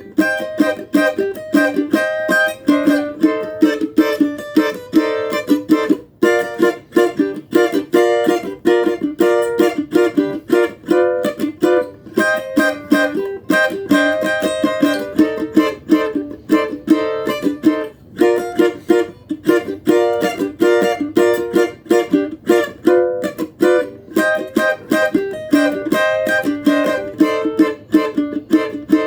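Cavaquinho strummed in a quick, steady rhythm of several strokes a second, the chords changing every second or two.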